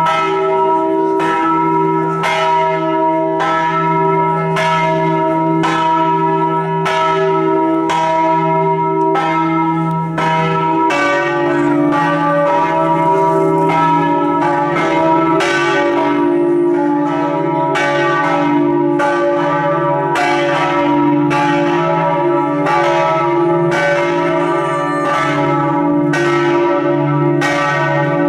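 The bronze bells of St Mark's Campanile, Venice, rung together in full swing (a slancio), each clapper flying against the swinging bell. The strikes overlap, more than one a second, over the bells' long humming tones. About eleven seconds in, a deeper bell's tone joins and the strikes come thicker.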